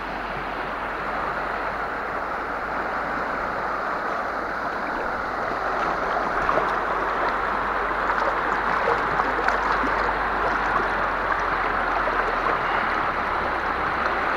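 River rapids rushing steadily, a little louder in the second half, with light splashes of a dourado held in the shallow water.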